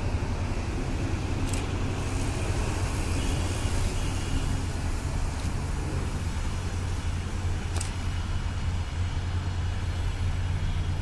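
Steady low rumble of distant engines and vehicle noise, holding at about the same level throughout.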